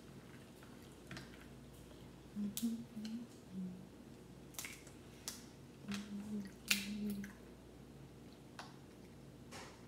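Crab leg shell being cracked and snapped apart by gloved hands, an irregular string of sharp cracks and clicks with wet squishing as the meat is picked out. A few short low hums come in twice between the cracks.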